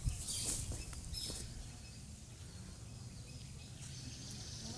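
Outdoor rural ambience: a steady low rumble with a few faint, brief high chirps, likely birds, and a couple of short hissy rustles in the first second or so.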